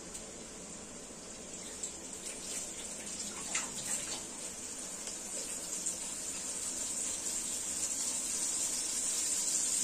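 Cooking oil heating in a wok over a gas flame: a steady hiss that grows gradually louder, with a few faint crackles, as the oil comes up to frying heat.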